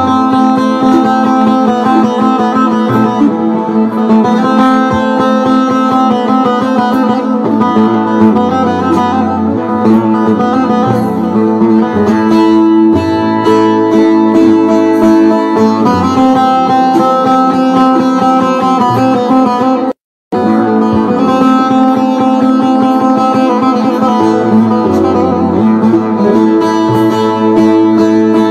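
Bağlama (saz) played solo: a steady stream of plucked melody notes over ringing drone strings, an instrumental interlude of a Turkish folk song (türkü). The sound cuts out for a split second about two-thirds of the way through.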